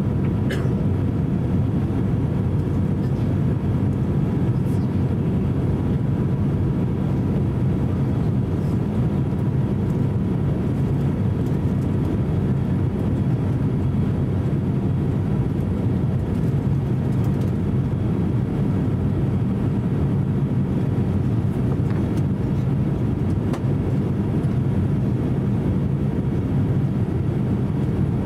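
Steady airliner cabin noise inside an Airbus A350-900 descending toward landing: an even low rumble of airflow and its Rolls-Royce Trent XWB engines, with a faint steady high tone.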